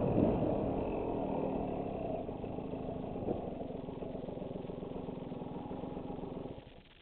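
Dirt bike engine running, easing off from riding revs to a lower, steady beat. The engine sound cuts off abruptly near the end.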